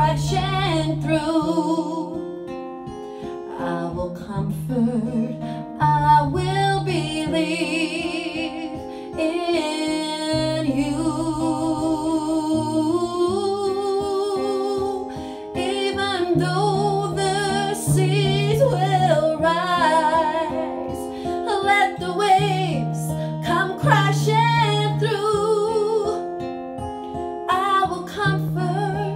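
Acoustic guitar accompanying a woman singing a slow song, her long held notes wavering with vibrato.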